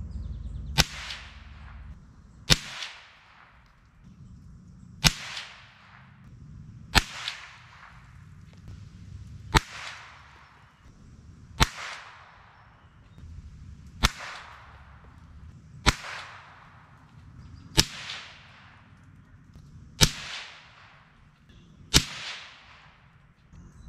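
.22 LR rifle shots from a Savage Mark II heavy-barrel bolt-action rifle: eleven sharp cracks about two seconds apart, each trailing off in a short echo.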